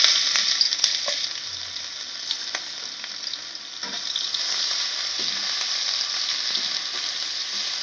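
Finely chopped garlic and ginger sizzling in hot oil in an iron kadai, loudest at first, just after they hit the oil, then settling into a steady sizzle. A slotted spoon stirs them, with a few light taps and scrapes against the pan.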